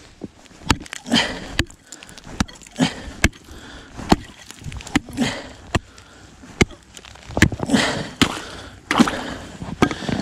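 Thin new lake ice being struck and broken through, with irregular sharp hits and short bursts of cracking and splashing water in between, as its thickness is checked.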